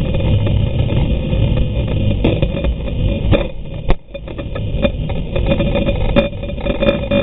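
Underwater drone of the towing boat's engines mixed with water rushing past the trolled camera housing, with a steady hum throughout. A few sharp knocks ring out, the loudest about four seconds in.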